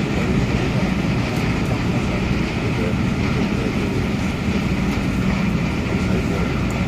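MTR A-train electric multiple unit running between stations: a steady rumble of motors and wheels on the track.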